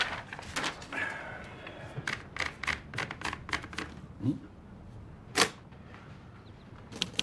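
Manual typewriter being loaded with paper: a rustle of paper, then a run of evenly spaced clicks as the sheet is wound in, and one loud sharp clack about five seconds in. Rapid keystrokes begin right at the end.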